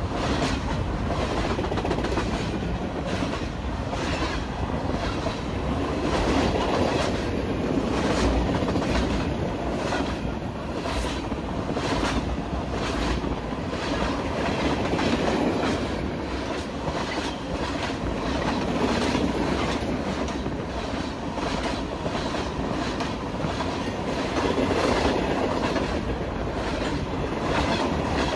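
A freight train of covered hopper cars and tank cars rolling past, a steady rumble of cars and wheels with repeated clicks as the wheels cross rail joints.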